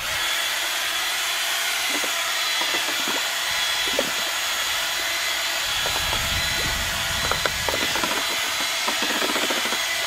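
Cordless drill driving a paddle mixer through a 5-gallon bucket of latex paint, spinning up suddenly and then running steadily, with a few light knocks.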